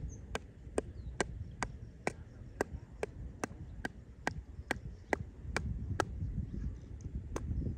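Sharp, crisp clicks repeating evenly about twice a second, over a low rumble of wind on the microphone.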